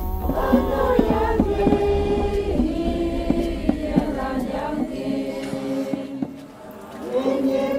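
Background music with choir-like chanting voices holding long notes; it fades down about six seconds in, then swells again near the end.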